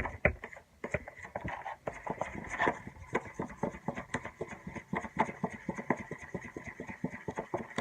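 Shampoo-and-salt slime mixture being mixed and squished, a rapid irregular run of small sticky clicks and ticks.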